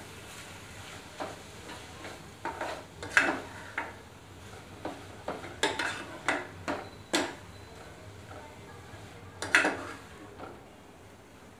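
Steel spatula scraping and knocking against a nonstick kadai while stirring ground coconut and cream as they roast. Irregular scrapes and clicks, loudest about three seconds in and again near nine and a half seconds.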